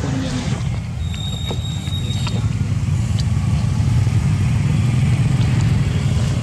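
Steady low rumble of outdoor background noise, with a faint thin high tone for a second or so starting about a second in.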